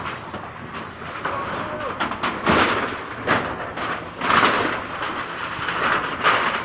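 Irregular knocks and clatter over a noisy outdoor commotion, with people's voices in the background.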